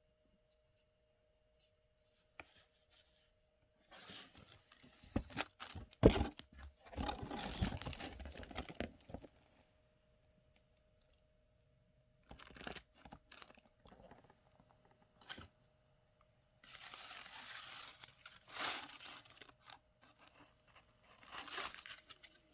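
Packaging being torn and crinkled by hand in several bouts, with a few sharp clicks and knocks between them.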